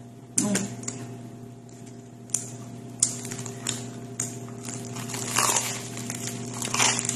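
Close-up eating of a large oven-toasted Vietnamese bread sandwich (bánh mì) with a partly burnt crust: crisp crunches and crackles of the crust being bitten and chewed, coming about every half second to a second, with wet chewing and mouth sounds. A steady low hum runs underneath.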